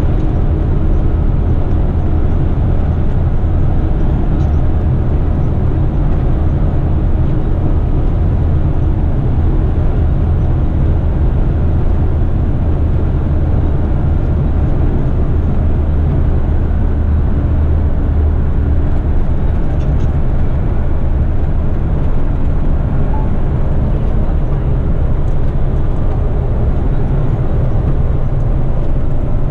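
Truck's engine and road noise heard from inside the cab while driving, a steady low drone that holds even throughout.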